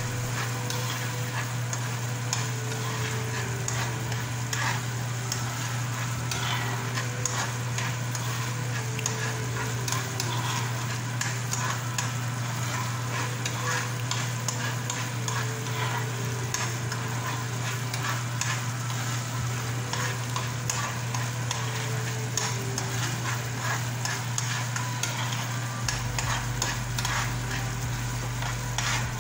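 Sugar caramel bubbling and sizzling in a nonstick frying pan over a gas flame while a metal spoon stirs it, scraping and clicking against the pan, over a steady low hum.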